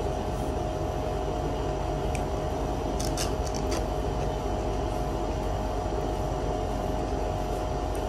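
A steady machine hum with one constant tone fills the room throughout, with a few faint clicks around three seconds in.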